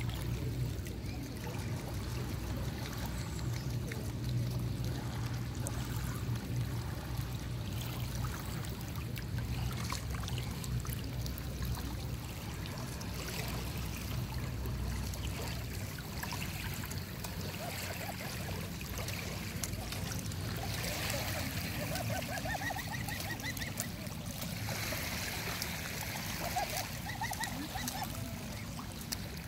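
Shallow river water trickling and lapping over stones, with a steady low rumble in the first half that fades out around the middle. From about two-thirds in, a few short, wavering calls come over the water.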